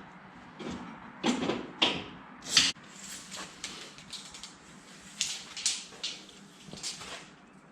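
A series of irregular knocks and clanks, about a dozen spread unevenly, as of steel pieces being handled and set down.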